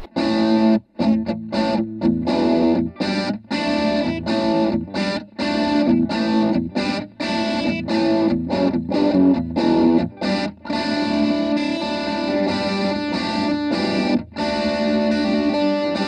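Distorted electric guitar through a Randall NB15 combo amp's drive channel, with the gain at about two o'clock, miked close at the speaker. It plays choppy chords cut short by brief stops, then held chords that ring on from about two-thirds of the way through.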